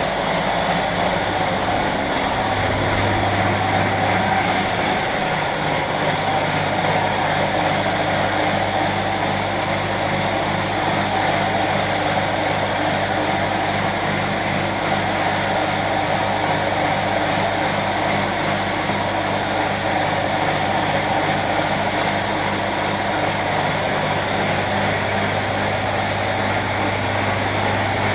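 An electric machine running steadily, with a constant low hum and a continuous hiss, of the kind made by car-painting shop equipment.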